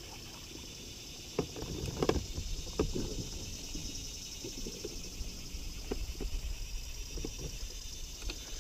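Scattered knocks and rustles of a fish being handled in a kayak, the strongest about two and three seconds in, over a steady high buzz of swamp insects.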